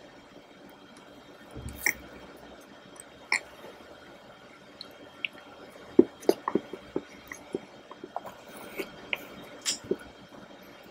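Close-up eating sounds: wet smacking and chewing of chocolate raspberry mousse cake, with small clicks and taps from a plastic fork scooping it. The sounds come in scattered short bursts, busiest about six to seven seconds in.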